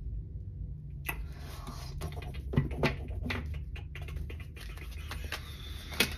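Tarot cards being shuffled and handled over a table: a papery rustling that starts about a second in, with several sharp taps and snaps of the cards, over a low steady hum.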